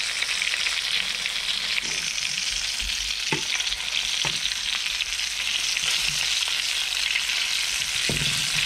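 Floured garfish chunks sizzling steadily in hot oil in a frying pan, with a few soft knocks as tongs turn the pieces.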